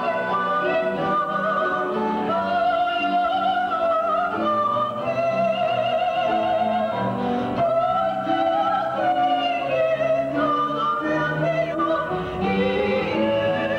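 Female voices singing a gospel duet in long, held notes with vibrato over instrumental accompaniment.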